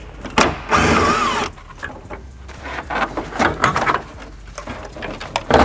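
A power tool runs in a short burst of about a second, its whine wavering in pitch, followed by scattered clicks and knocks of tools and parts being handled.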